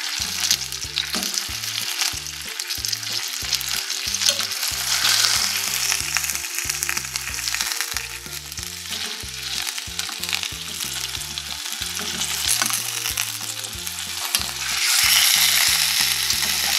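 Chicken legs and thighs searing in hot oil in a deep stainless steel frying pan: a steady crackling sizzle as the skin browns, growing louder about a second and a half before the end.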